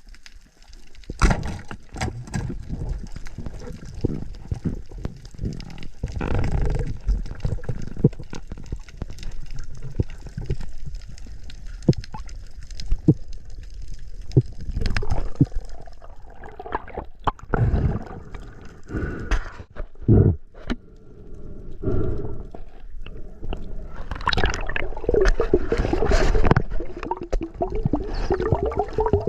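Water gurgling and sloshing with bubbling, broken by many irregular clicks and knocks, heard through an underwater action-camera housing.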